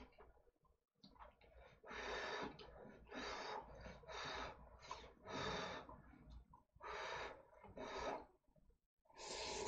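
Slurping cup noodles in black bean sauce from chopsticks, in a series of about eight short slurps.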